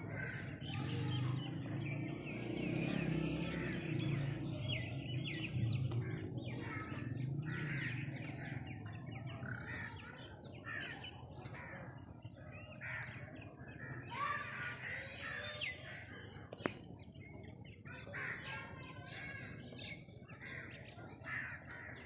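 Crows cawing, mixed with the chirping of other birds, with many short calls throughout. A low rumble sits under the first half.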